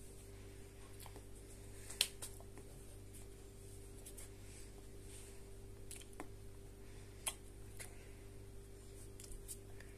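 Quiet room tone with a steady low hum, broken by a few sharp little clicks and taps, the loudest about two seconds in and another a little after seven seconds.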